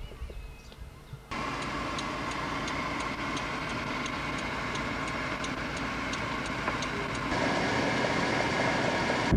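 Steady mechanical running noise of a vehicle in motion, starting suddenly about a second in, with a light regular ticking about three times a second over it. Near the end the noise changes and grows a little louder.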